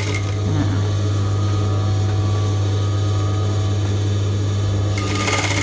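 Singer 3191D200A electric sewing machine running steadily while stitching a long straight seam, with a constant low motor hum. The sound turns duller shortly after the start and brightens again about five seconds in.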